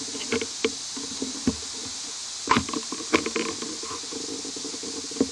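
Steady high-pitched insect chorus, with a scattering of sharp knocks and rustles. The loudest knocks come about two and a half and three seconds in.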